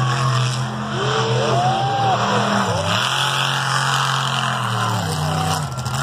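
Brutus monster truck's supercharged 575 Chevy big-block V8 running hard at high revs while driving through loose sand. The revs drop briefly and pick back up about three seconds in, and again near the end.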